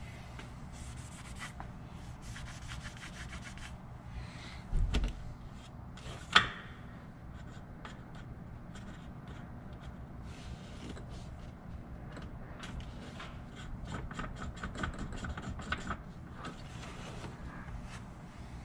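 Hands-on handling sounds: repeated rubbing and scraping strokes over a low steady hum, with a low thump about five seconds in and a sharp click soon after, as the finished oil change gets a last check.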